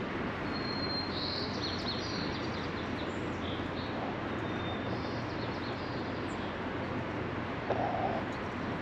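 Steady outdoor city noise from distant traffic, with small birds chirping through the first half and a short tone near the end.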